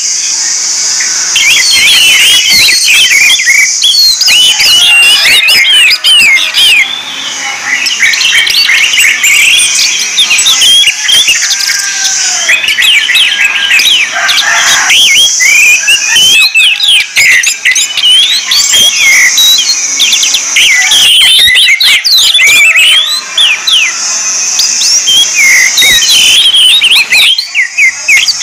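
Orange-headed thrush singing a fast, continuous song of varied chirps, whistles and quick trills, over a steady high hiss.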